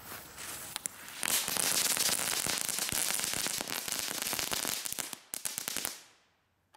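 Two crackling balls (small F1 ground fireworks) going off. A low fizz with a few pops turns, about a second in, into dense rapid crackling that lasts about four seconds, then thins to scattered pops and stops about six seconds in.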